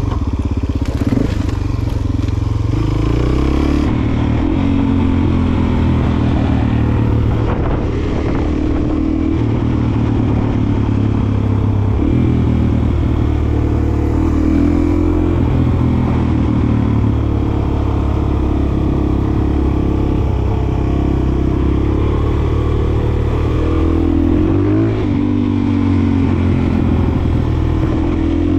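Dual-sport motorcycle engine running as the bike is ridden, its pitch rising and falling several times with throttle and gear changes.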